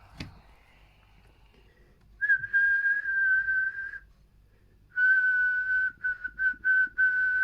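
A man whistling a steady high note into the microphone of a Stalker IX CB radio keyed on lower sideband into a dummy load, the usual way to drive a sideband transmitter for a power check. He gives one long whistle of about two seconds, then after a pause a second whistle that breaks into several short ones.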